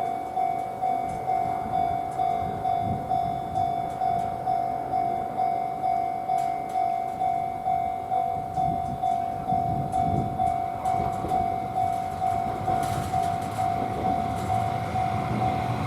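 Japanese level-crossing warning bell ringing steadily with its 'kan-kan' strikes, about two and a half a second, while a Hiroshima Electric Railway tram rumbles on the track.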